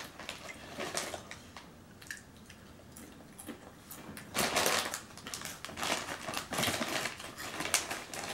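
Crinkling of a plastic potato chip bag being handled, mixed with the crunch of chips being bitten and chewed, in irregular bursts, the loudest about four and a half seconds in.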